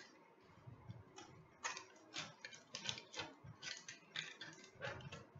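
A small hand tool scraping and tapping at the packing tape on a cardboard box. It makes faint, irregular scratchy strokes, about two a second.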